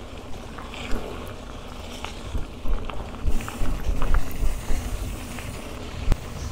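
Bicycle riding over a gravel track: tyres crunching on loose stones, with frequent knocks and rattles from the bike and its bags over bumps, busiest in the middle, and wind rumbling on the microphone.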